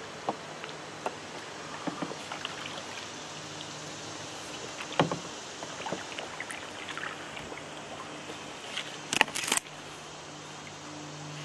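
Knocks and clicks of a paddle and gear against a canoe's hull, scattered over a steady hiss of the moving river, with one sharp knock about five seconds in and a short loud rush of noise near nine seconds.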